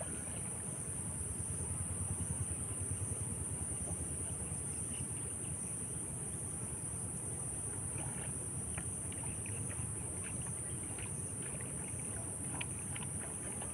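Outdoor ambience: wind rumbling on the microphone under a steady high-pitched insect drone, with scattered short high chirps in the second half.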